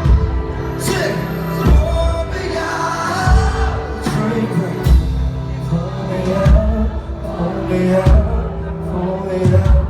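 Live band music from the stage, a passage without sung words, with a steady drum beat about every 0.8 seconds under held melodic lines.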